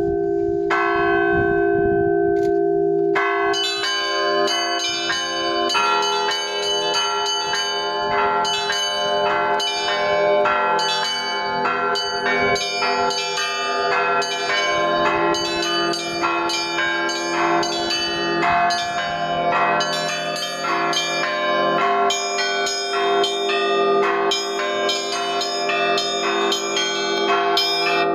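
Russian Orthodox church bells ringing an Easter peal (zvon). The low tones of the larger bells hang on, and from about three seconds in the small bells join in a fast, dense run of strikes.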